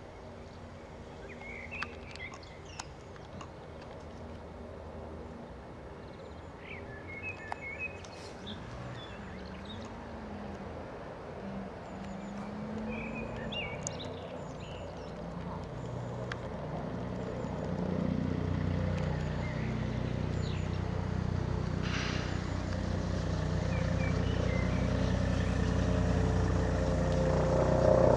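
BK 117 air rescue helicopter approaching, its rotor and twin turbines growing steadily louder, with a low even-pitched rotor sound building through the second half. A few faint high chirps in the first half.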